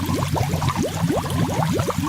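Continuous underwater bubbling: a dense stream of bubbles giving quick upward-gliding blips over a low rumble.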